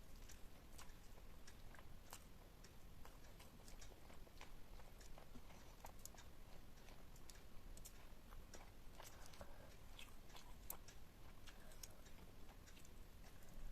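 Faint, close-miked chewing: irregular soft mouth clicks and smacks as food is chewed.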